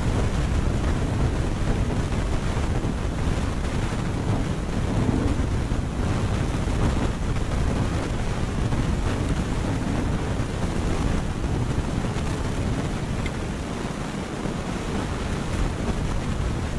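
Wind buffeting the microphone: a steady rushing noise, heaviest in the low end, easing slightly near the end.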